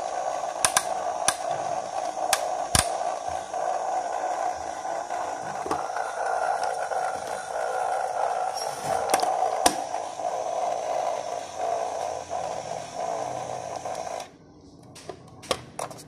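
Small battery motor of a plastic toy washing machine running with a steady whirring hum as it spins the drum, then cutting off suddenly near the end. A few sharp plastic clicks come as the toy's door and buttons are handled.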